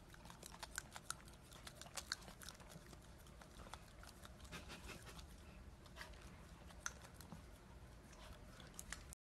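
Corgi puppy chewing and biting up close, faint irregular clicks and crunches of its teeth. The sound cuts off suddenly near the end.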